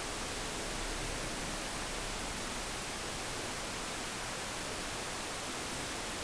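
Steady, even hiss with nothing else standing out: the recording's own noise floor, with no bark or vocal sound from the dog.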